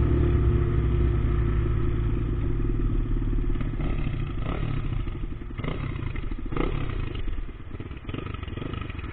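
Dual-sport motorcycle engine heard from the rider's own bike as it slows and pulls up to a stop, the sound growing steadily quieter, with a few short knocks partway through.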